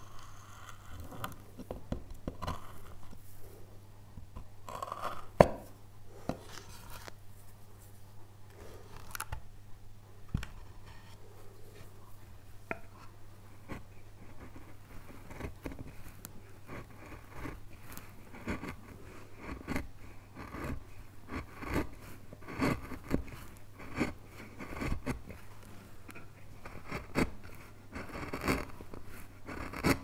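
Hand carving tools, a knife and a flat chisel, cutting into pale wood and paring off shavings in short scraping strokes that come more often in the second half. A sharp click about five seconds in is the loudest sound, and a low steady hum runs underneath.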